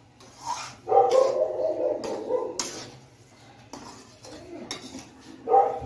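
Metal spatula scraping and knocking against an aluminium kadhai while thick semolina halwa is stirred, giving several sharp clicks through the second half. A brief voice-like sound is heard in the background about a second in.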